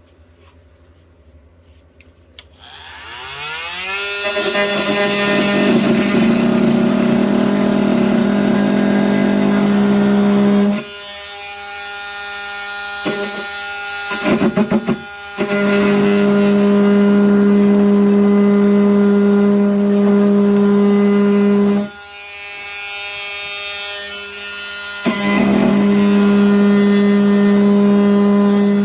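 Milwaukee M18 cordless oscillating multi-tool starting with a rising whine, then running at a steady loud buzz while cutting thick plastic. The buzz drops to a lower level twice, at about 11 and 22 seconds in, and comes back each time.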